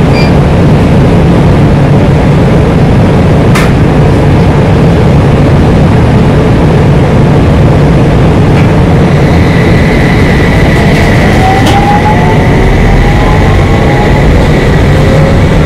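Running noise heard inside a Utsunomiya Light Rail HU300 tram as it passes through a stop without halting: a loud, steady rumble with a sharp click a few seconds in. Past the middle a thin, high steady tone and a whine rising in pitch join it.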